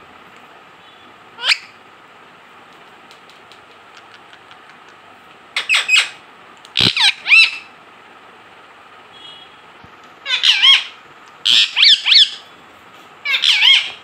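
Indian ringneck parakeet (rose-ringed parakeet) calling in loud, shrill squawks, given in about six short clusters with pauses between them.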